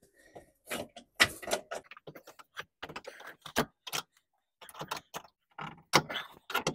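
Irregular clicks, knocks and scrapes of a Toyota Camry's passenger-side rubber-and-metal motor mount being wiggled loose by hand and pulled from its bracket.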